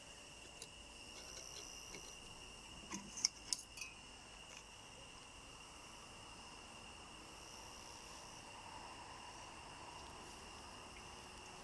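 Steady high-pitched insect chirring in the background, with a quick cluster of sharp clicks about three seconds in.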